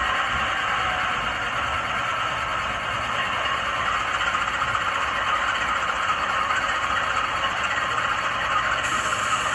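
Model locomotive's sound decoder playing a GE 7FDL16 diesel prime mover, running steadily through the model's small speaker, with little deep bass. A higher hiss joins near the end.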